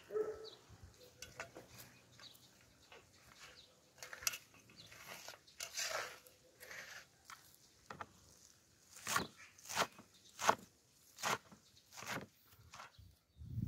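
Kitchen knife cutting fresh leafy herbs, with crisp cuts and rustling of stems and leaves. In the second half it turns into a run of sharp chops on a wooden board, roughly one every half to three-quarters of a second.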